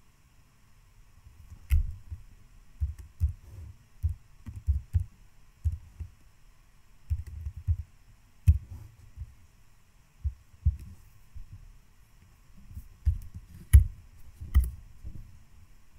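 Typing on a computer keyboard and clicking a mouse, heard as irregular dull thumps with a few sharper clicks.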